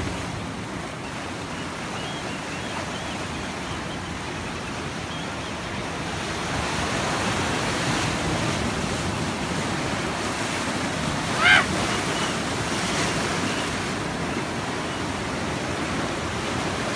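Ocean surf breaking and washing up over sand, a steady rushing hiss that grows a little louder midway. About two-thirds of the way through, a single brief high-pitched cry stands out once over the surf.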